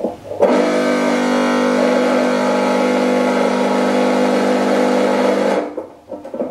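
Small electric motor with a little bell attached, running on a wok and picked up through a contact microphone: a loud, steady, pitched buzzing drone that switches on about half a second in and cuts off about five seconds later.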